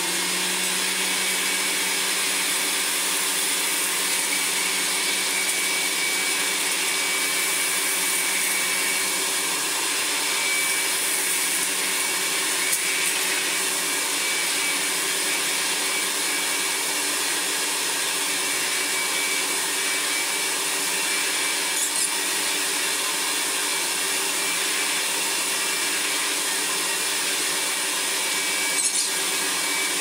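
Hoover Senior 652A upright vacuum cleaner running steadily through its hose and above-floor tool, with its drive belt off so only the motor and fan are turning: a steady hum under a high whine and a rushing of air. A few brief ticks, as spilled rice is drawn up the hose.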